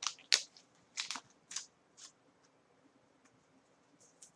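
Trading cards being handled: a handful of short, crisp rustles and scrapes of card stock, most in the first two seconds and one more near the end.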